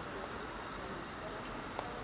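Railway yard ambience: steady low background noise with faint distant voices and a single short click near the end.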